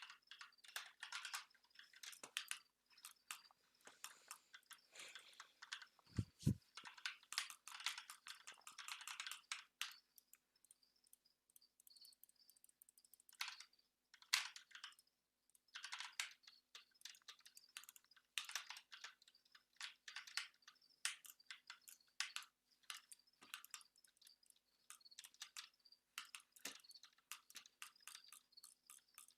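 Computer keyboard keys clicking in quick bursts of typing with short pauses between, mixed with mouse clicks. Two low thumps about six seconds in.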